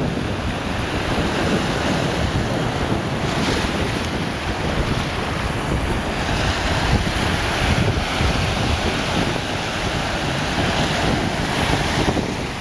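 Wind buffeting the microphone over the steady wash of small waves breaking on a sandy beach, with the surf hiss swelling now and then.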